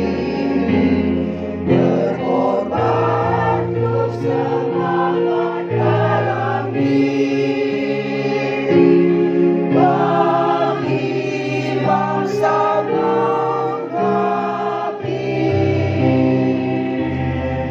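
A women's choir singing in held, sustained phrases, with low steady accompanying notes underneath that change with the chords.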